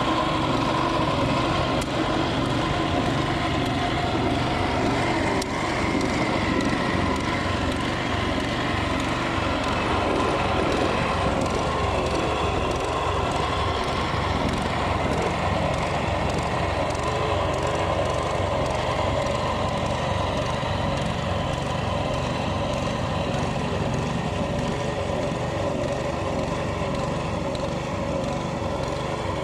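A small engine running steadily and without a break, typical of a machine at work on a construction site.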